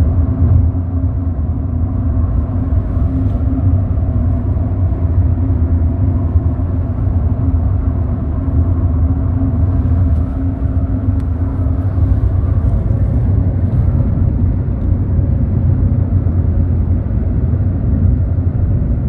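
Steady engine and road rumble inside a moving car's cabin.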